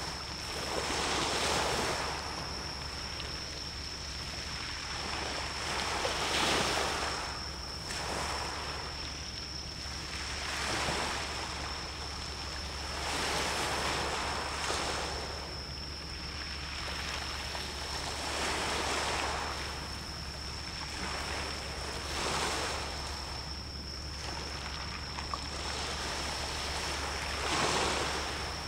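Sea waves washing in, the rush of water swelling and falling away about every two to three seconds, over a steady low hum.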